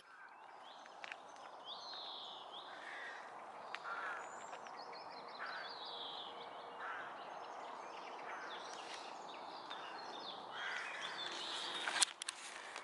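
Birds calling and singing, short sweeping phrases again and again, over steady background noise, with a sharp click near the end.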